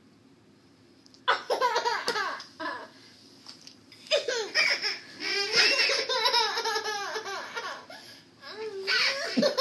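Young children laughing and giggling in repeated bursts, starting about a second in after a brief quiet.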